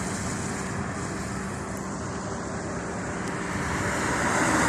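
Road traffic in the rain: a steady hiss of tyres and engines, swelling near the end as a vehicle draws nearer.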